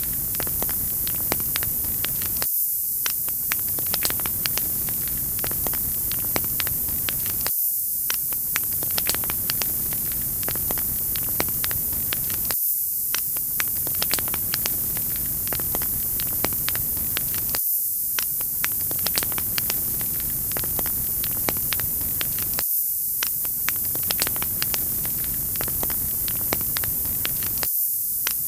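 Wood fire crackling in a fireplace: a steady hiss with many small sharp pops and snaps throughout. The sound briefly drops out about every five seconds, as a short loop repeating.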